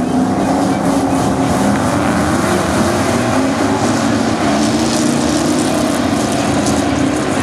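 A pack of V8 dirt-track stock cars running hard together, a steady dense blend of several engines at once.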